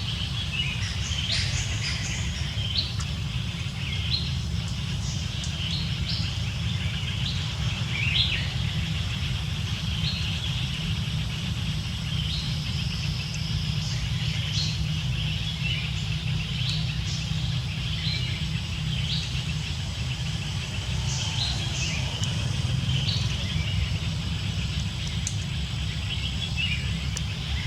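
Birds chirping with many short, high calls scattered throughout, over a steady low rumble.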